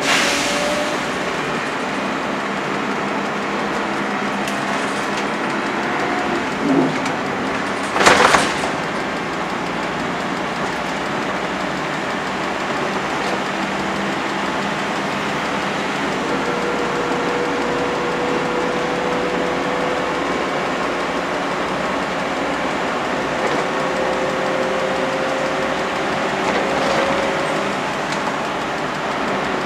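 Interior noise of a Volvo B10BLE single-deck bus under way: its rear-mounted diesel engine running, with road and body noise, and a faint whine that slowly rises in pitch through the second half. A brief loud rattle or clatter comes about eight seconds in.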